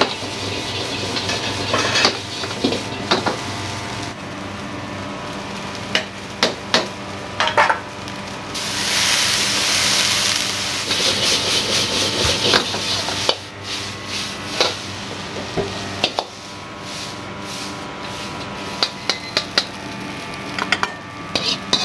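Fried rice being stir-fried in a wok: a metal ladle clanks and scrapes against the wok in quick irregular strikes over a steady low hum. About eight and a half seconds in, a loud burst of sizzling lasts for a couple of seconds.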